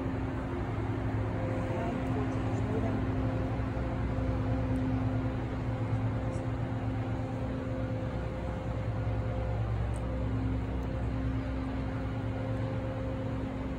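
Honeybees buzzing in a steady, wavering hum as a package of bees is brushed out into the hive.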